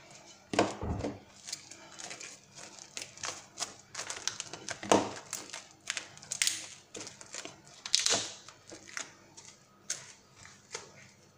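Plastic cling film crinkling as it is stretched over a glass bowl and pressed down around the rim: a run of irregular small crackles, with louder crackles about half a second, five and eight seconds in.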